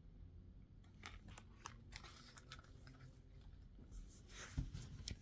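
Faint rustling and crinkling of craft sheets and packaging being handled, with scattered light clicks and a louder rustle near the end.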